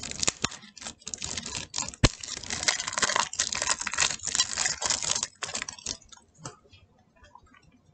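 Clear cellophane shrink wrap crinkling and crackling as it is peeled off a trading-card structure deck, with one sharp knock about two seconds in. The crackling thins to a few faint rustles after about six seconds.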